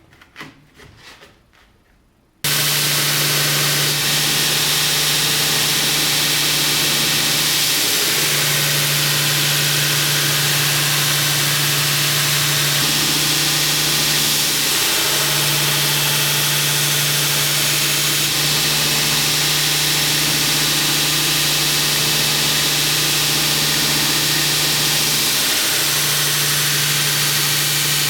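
Electric grinder switched on about two seconds in, then running steadily with a strong hum and a loud hiss, as the bevels of a 15N20 steel chef's knife blade are ground.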